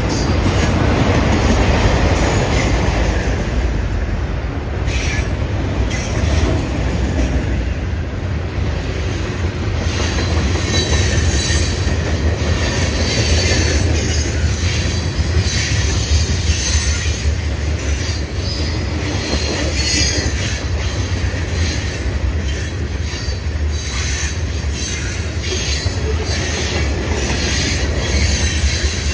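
Freight cars of a passing manifest train rolling by close up: a steady low rumble of steel wheels on rail, with scattered wheel clicks. High-pitched wheel squeal sets in from about ten seconds in.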